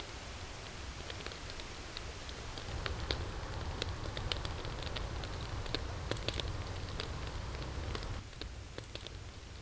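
Wood fire crackling, with irregular sharp snaps and pops over a steady rushing background that eases a little near the end.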